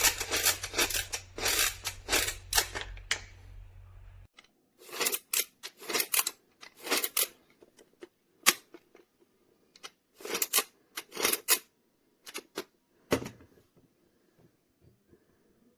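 Plastic toy tool set being handled: a run of short clicks and clatters of plastic pieces knocking together, densest at first over a low hum that stops about four seconds in, then scattered clicks with short gaps.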